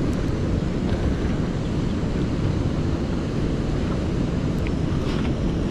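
Wind buffeting the microphone: a steady low rumble with a few faint ticks.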